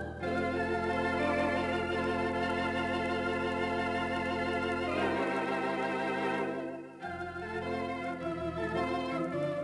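Cinema theatre organ playing sustained chords with an even wavering vibrato (tremulant) over long held pedal bass notes. The sound thins briefly about seven seconds in, then the next phrase comes in.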